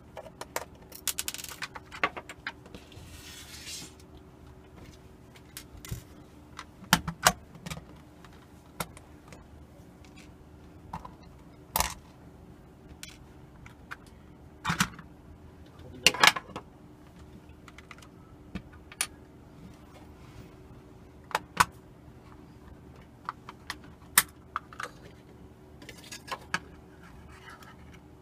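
An alarm clock being taken apart by hand: scattered sharp clicks and clatter of small plastic and metal parts, with a scratchy rustle during the first few seconds.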